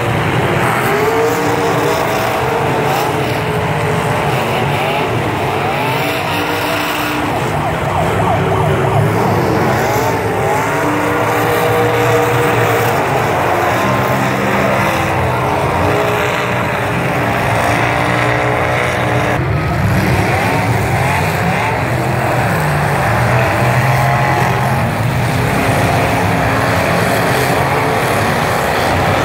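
Several demolition derby trucks' engines revving up and down over and over, their pitches rising and falling across one another in a continuous, loud din.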